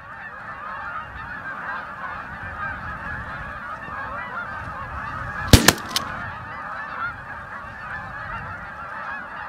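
A large flock of geese honking continuously. About five and a half seconds in, three sharp bangs in quick succession, shotgun shots, cut through the calling.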